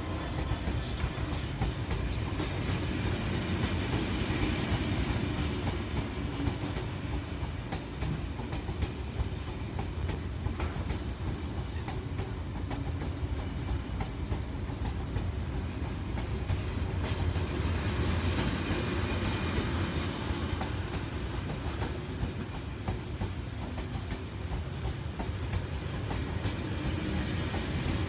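Train running along the track: a steady low rumble with frequent irregular clicks from the wheels over the rails.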